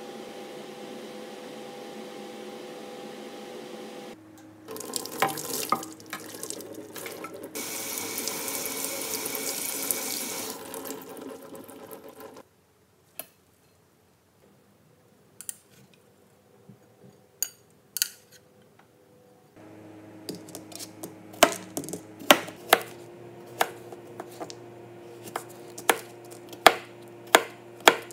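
A steady hum, then a water tap running hard for about eight seconds. After a quiet stretch with a few light clicks, a kitchen knife chops cucumber on a plastic cutting board from about twenty seconds in, with sharp strokes about one and a half a second over a low hum.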